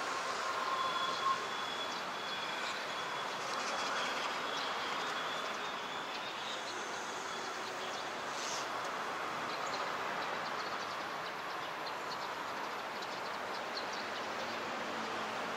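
Steady city background noise: a constant hum of distant traffic, with a faint thin high tone in the first few seconds.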